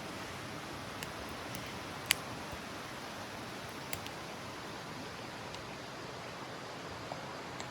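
Wood campfire crackling: scattered sharp pops, the loudest about two seconds in, over a steady rushing background.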